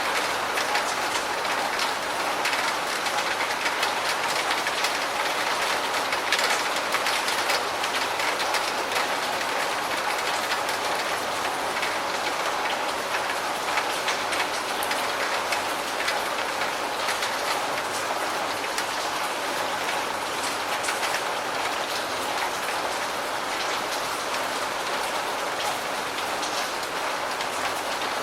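Steady rain falling: an even hiss with many separate drops ticking through it.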